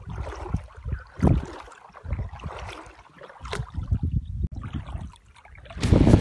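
Shallow water lapping with small irregular splashes, under uneven gusts of wind on the microphone. Music comes in loudly near the end.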